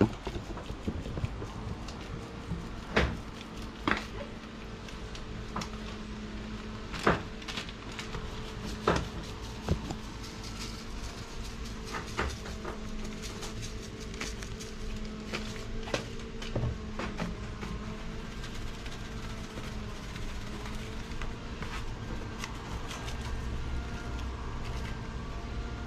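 Seasoning shaker bottles being handled over a bowl of fish and set down on a kitchen counter: a dozen or so sharp clicks and knocks spread several seconds apart, over a steady low hum.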